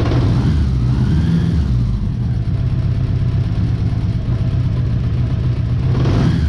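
Honda Gold Wing GL1000's flat-four engine running steadily, warm, just after a quick hot restart on its freshly serviced starter.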